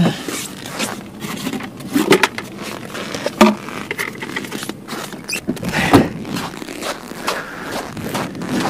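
Rustling of a padded winter suit and gloves with scattered scrapes and knocks as a plastic container of live bait fish is handled, the sharpest knocks about three and a half and six seconds in.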